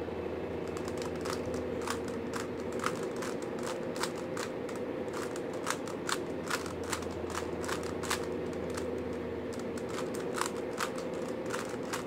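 3x3 Rubik's cube being turned quickly by hand: an irregular run of sharp plastic clicks, several a second, as the layers turn and snap into line. The clicks start a little under a second in.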